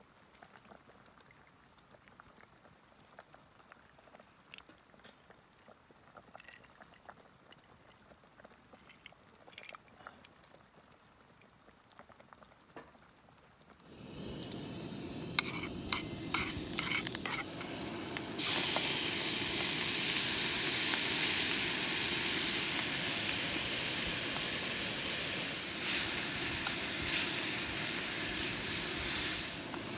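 Faint light clinks, then about halfway through a steady sizzling hiss sets in. It grows louder a few seconds later and dies down just before the end.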